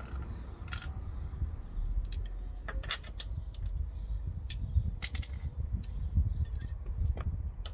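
Scattered metallic clicks and clinks of a wheel brace and small metal wheel parts being handled at a car's front wheel, one clink ringing briefly about five seconds in, as the wheel is made ready to come off.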